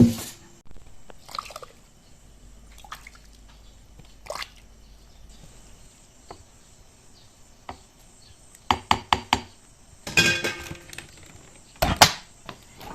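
Liquid dripping and pouring, with a few sharp knocks about nine seconds in and louder clattering near the end.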